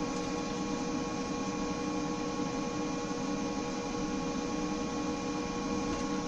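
Steady electrical or machine hum holding several fixed tones, unchanged throughout, such as a motor or fan running in a shop.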